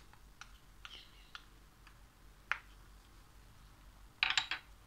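Light, scattered clicks and taps of a wooden spoon against a glass mixing bowl while ingredients are stirred in, with a short clattering burst about four seconds in.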